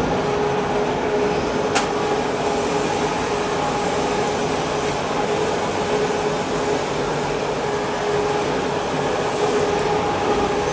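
Steady running noise of workshop machinery with a constant hum, and a single sharp metallic click about two seconds in.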